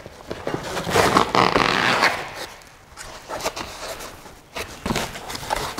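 Foam packing insert being pulled out of a cardboard box: a loud scraping rustle of foam against cardboard for about a second and a half, then softer rubbing and a few light knocks.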